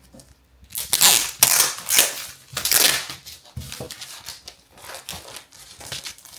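A prize package being torn open by hand: loud ripping and crinkling bursts, strongest about a second in, then smaller rustles and crackles.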